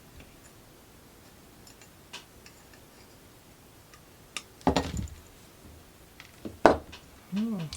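Small clicks and two loud knocks of hard objects on a workbench, then near the end a cat's short meow that rises and falls.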